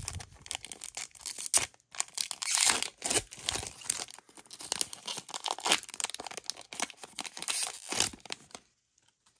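Pokémon Trick or Trade booster pack wrappers being torn open and crinkled by hand: a run of ripping and crackling wrapper noise that stops about a second before the end.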